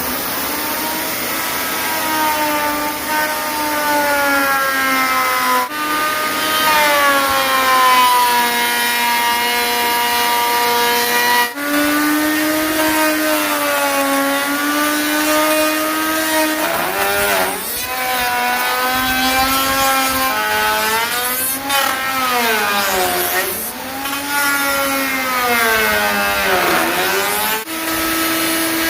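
Electric power tool motor whining while cutting wood, its pitch sagging each time it takes load and climbing back as it frees up, in several segments that start and stop abruptly.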